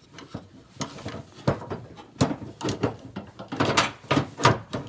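Irregular clicks and knocks of metal latch rods and plastic clips being handled and fitted inside a pickup tailgate.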